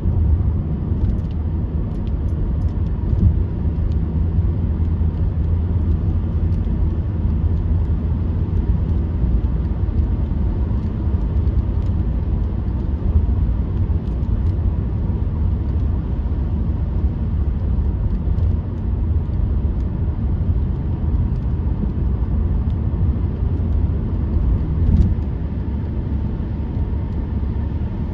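Steady low rumble of a car being driven: road and engine noise.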